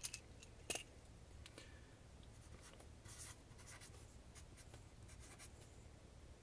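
Felt-tip marker scratching on paper in short, quick strokes while writing, with two sharper ticks near the start.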